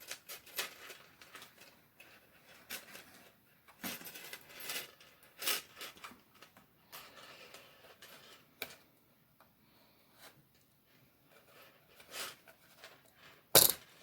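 Light metal chain and hooks clinking and jingling in short, irregular clicks while being hooked onto a feeder, with a sharper clink near the end.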